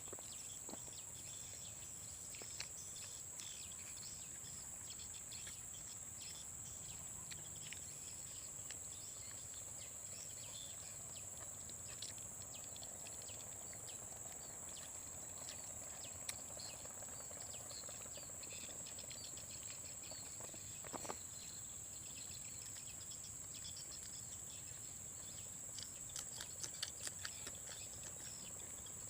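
Steady high-pitched drone of forest insects, with scattered soft clicks and ticks and a short cluster of ticks near the end.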